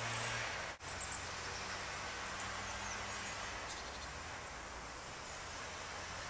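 Steady outdoor ambience dominated by the camera microphone's hiss, with a few faint high chirps in the middle. It breaks off for an instant a little under a second in.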